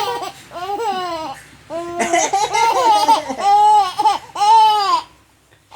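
A baby laughing in a string of high-pitched, gleeful laughs with short breaths between them. The laughs stop about five seconds in.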